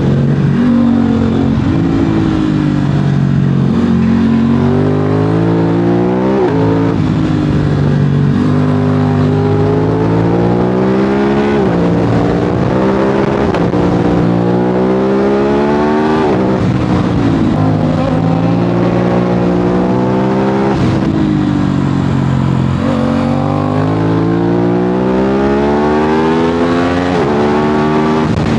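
Aprilia RS 660 parallel-twin engine through an SC-Project SC1-R exhaust, pulling hard in repeated rising runs of engine pitch. The pitch drops sharply between runs, about every four to five seconds, as the rider shifts or rolls off the throttle.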